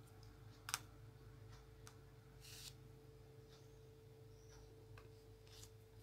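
Faint, scattered clicks and taps of a diamond-painting drill pen picking drills from a plastic tray and pressing them onto the sticky canvas, over a steady low hum.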